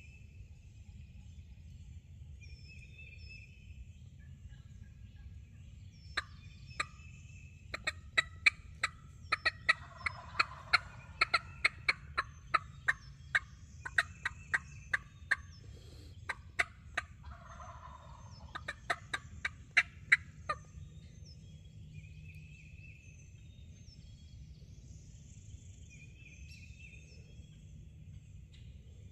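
Turkey calling: a rapid, uneven run of sharp, loud notes that starts about six seconds in and stops at about twenty seconds, with two denser rattling stretches, over faint songbird chirps.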